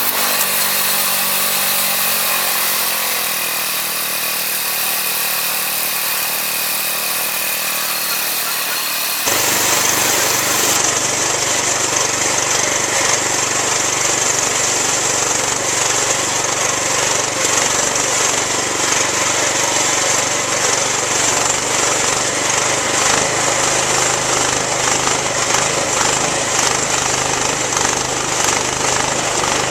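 Wood-Mizer LX25 band sawmill running steadily as it saws a white oak log. About nine seconds in the sound changes abruptly to a heavier, fuller noise that then holds steady.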